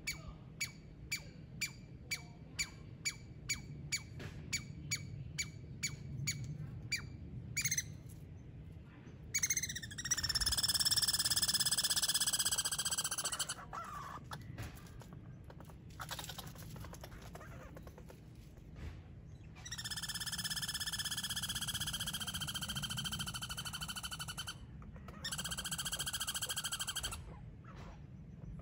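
Squirrel scolding. First comes a fast run of short, sharp barks, about two and a half a second. Then, from about ten seconds in, come several long, buzzing, rattling calls, each lasting a few seconds.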